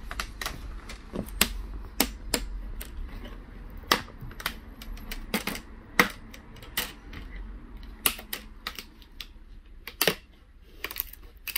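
Plastic front bezel of an HP 15 laptop screen being pried off the display panel: irregular sharp clicks and snaps as it comes away from its glue, with louder snaps about six seconds in and again around ten seconds.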